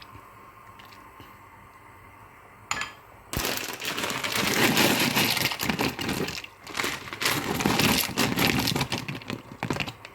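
Dense crinkling and crackling of a plastic noodle packet being handled. It starts about three seconds in after a single click and goes on almost to the end.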